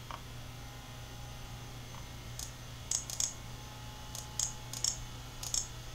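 Light clicking of a computer keyboard and mouse at a desk, about ten short clicks in small clusters starting a couple of seconds in, over a steady low electrical hum.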